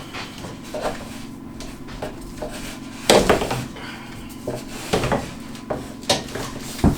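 Scattered knocks and clatter of objects being handled, a handful of sharp strikes with the loudest about three seconds in, over a steady low hum.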